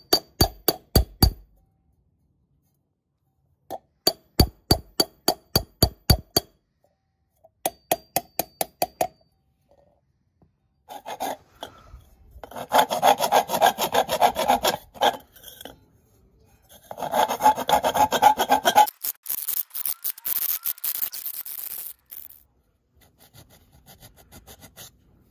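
A hand hammer strikes a copper pot's bottom on a metal stake to level it: three runs of quick, ringing blows, about four a second. Then comes a long stretch of fast rubbing or scraping strokes on the copper body, the loudest sound, and near the end faint filing on the spout.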